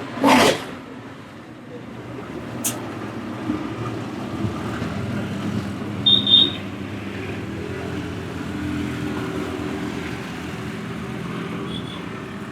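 Steady road traffic with vehicle engines running. A loud, sharp hit comes about half a second in, and two short high beeps sound a little past the middle.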